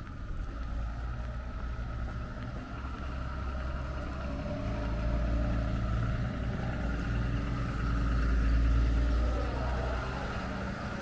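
A motor vehicle's engine running with a low, steady hum. It grows louder to a peak about eight seconds in, then eases off.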